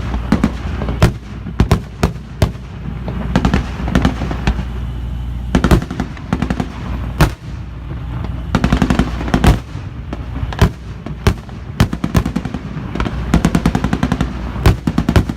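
Staged air-raid fire: rapid bursts of blank machine-gun fire and single louder booms, coming irregularly, over a steady low drone.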